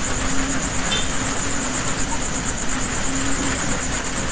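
Steady background hiss and rumble with a faint hum that comes and goes, and no speech.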